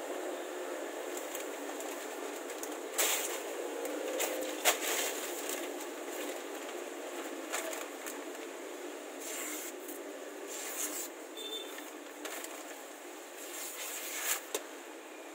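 A sheet of newspaper rustling and crinkling as it is handled, with several short, sharp tearing bursts as it is cut through, over a steady hiss.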